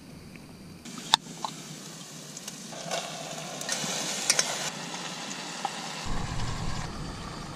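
Fish curry cooking in a steel pot on a gas canister stove: a steady sizzle and hiss, with sharp clinks and knocks of a knife and spoon on the pot and board, the loudest a little after a second in.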